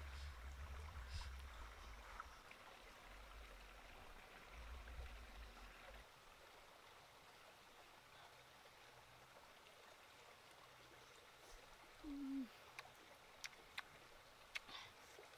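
Near silence: faint outdoor background, with a low rumble in the first few seconds, then a brief low hum and a few sharp clicks near the end.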